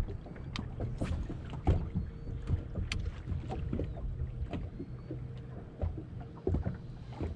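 Bow-mounted electric trolling motor humming steadily on a bass boat, with small waves slapping the hull in irregular knocks and splashes.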